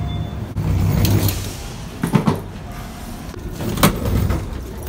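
Low steady rumble of a moving vehicle, with three short sharp knocks or clicks.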